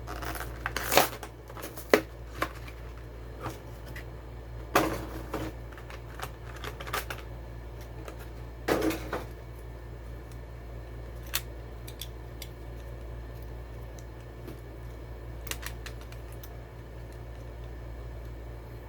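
Packaging of a die-cast model car being handled and opened by hand: irregular sharp clicks, crackles and rustles of plastic and cardboard, the loudest about one and two seconds in and again near five and nine seconds, over a steady low hum.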